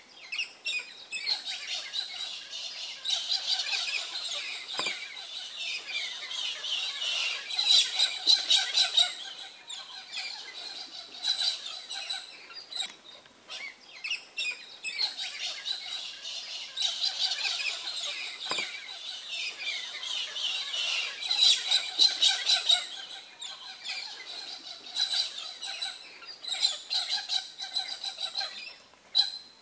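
A chorus of many small birds chirping and calling together, thick and continuous, the short high calls overlapping throughout.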